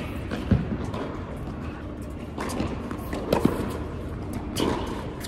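Tennis ball being struck by racquets and bouncing on an indoor hard court: a few sharp pops spaced irregularly, the loudest about half a second in and another near three and a half seconds.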